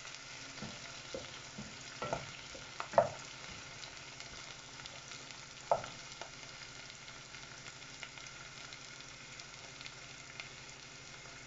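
Diced red onions sizzling steadily in oil in a non-stick saucepan while a wooden spoon stirs them, knocking against the pot a few times in the first six seconds; after that only the sizzle goes on, with small pops. The onions are being sweated until they turn translucent.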